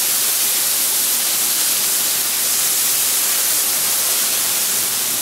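Water squirted from a squeeze bottle onto a preheated flat-top griddle, hissing steadily as it flashes to steam on contact, a sign of how hot the cooking surface is. The hiss is loud and even throughout, stronger in the high end than the low.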